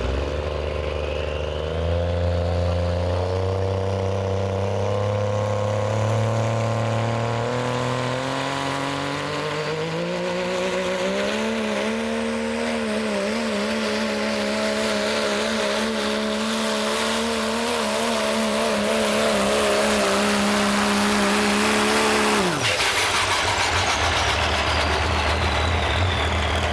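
Diesel pulling truck's engine under full load on the pull: its pitch climbs in steps, then wavers unevenly as the truck bounces down the track, with a turbo whine rising in the first seconds. About 22 seconds in the revs fall away sharply and a turbo whistle winds down.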